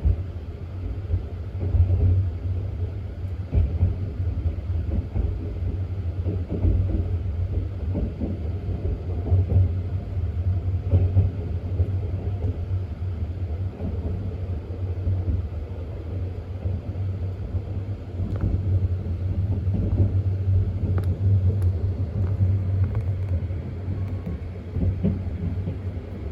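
285-series sleeper electric train running: a steady low rumble with irregular short knocks and rattles from the running gear.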